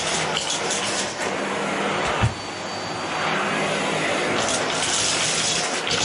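Canister vacuum cleaner running steadily with its floor nozzle on carpet. There is a single thump about two seconds in and brief rattling near the end.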